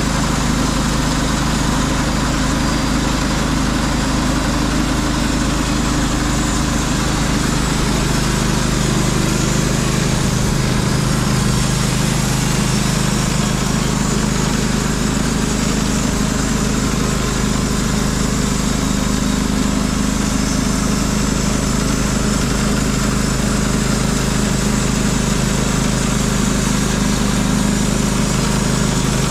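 Norwood LumberPro HD36 V2 portable sawmill's engine running steadily at an even pitch and level.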